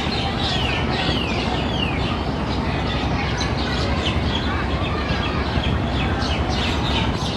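Steady running noise of a passenger river launch under way, with many short, high, downward-sweeping bird chirps over it, several a second.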